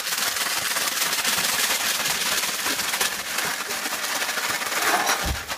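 Plastic wrappers on sleeves of saltine crackers crinkling and crackers crunching under the hand: a dense, rapid crackle. There is a low thump just before it cuts off suddenly near the end.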